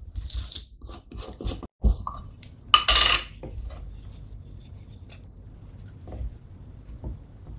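Screw-top lid being twisted off a glass jar of sesame paste: a run of short gritty scrapes, then one louder scrape about three seconds in. After that only faint small sounds of a wooden spoon going into the paste.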